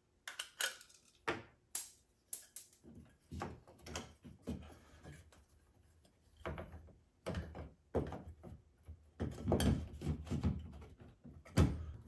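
Irregular clicks, knocks and light taps of hands working on an electrical box and its parts, with a few sharp clicks in the first two and a half seconds and denser handling clatter later.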